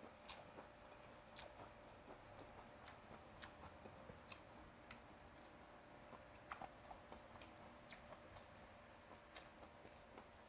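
Faint close-up chewing of a mouthful of raw snakehead sashimi, with scattered soft, irregular mouth clicks.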